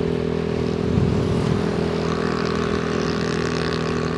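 Yamaha NMAX 155 scooter's single-cylinder engine running steadily at cruising speed, with road and traffic noise around it. A brief low rumble swells about a second in.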